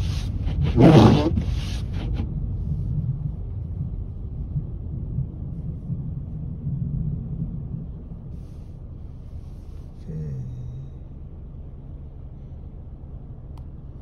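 Car cabin road noise: a steady low rumble of a car driving slowly over a snow-covered road, growing quieter as it slows. A brief louder noise comes about a second in.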